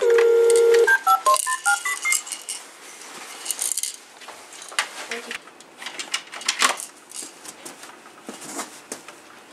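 Electronic toy telephone on a children's activity table: a loud steady electronic tone for about a second, then a quick run of short beeps at different pitches as its keypad buttons are pressed. After that come scattered plastic clicks and taps of the buttons and toy being handled.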